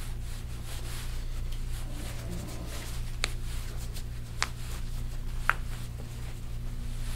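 Three short, sharp clicks about a second apart over a steady low hum.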